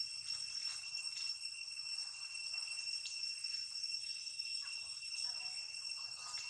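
Steady high-pitched insect chorus: several unchanging tones sounding together, with a few faint chirps and ticks over it.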